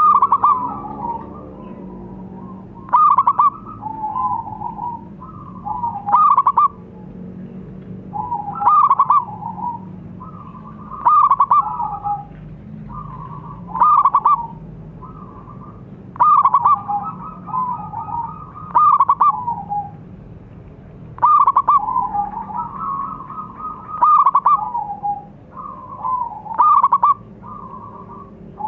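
Zebra dove (perkutut) cooing: a short phrase of quick, bubbly notes, repeated about every two and a half seconds.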